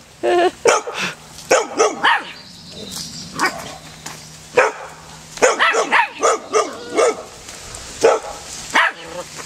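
A small terrier and a yellow Labrador barking back and forth across a chain-link fence, in irregular loud barks, some in quick clusters and some single.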